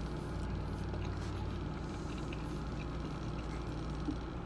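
Steady low hum of a car idling, heard from inside the closed cabin, with faint chewing and mouth sounds over it.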